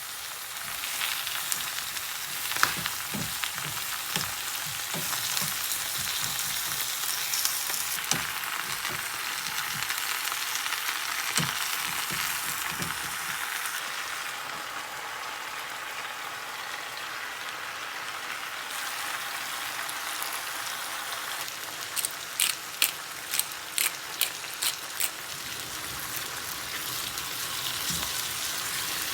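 Food frying in a hot pan with a steady sizzle, with occasional knocks as it is stirred. Near the end comes a quick run of about eight sharp clicks.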